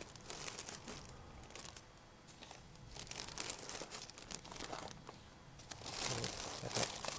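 Clear plastic bag crinkling in irregular bursts as it is gathered by hand and twisted shut to seal it airtight. There is a quieter stretch about two seconds in, and the bag gets louder again near the end.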